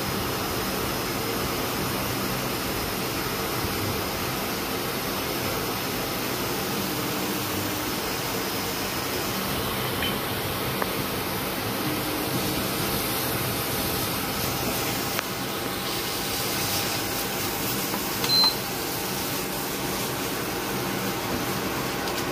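Steady whirring noise of a kitchen appliance running, with a single short high beep near the end.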